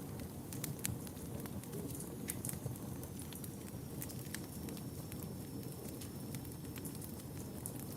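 Wood fire burning in a fireplace, with a steady low rumble and frequent irregular crackles and pops.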